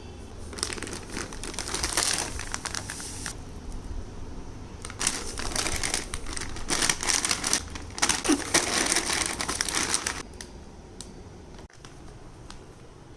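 Crinkling, rustling handling noise in two long stretches: the first from about half a second to three seconds in, the second from about five to ten seconds in. A few faint clicks follow.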